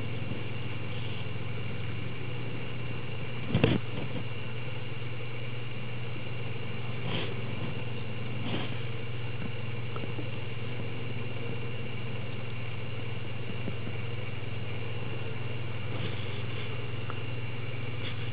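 A steady low mechanical hum, with a single sharp knock about three and a half seconds in and a couple of faint clicks later.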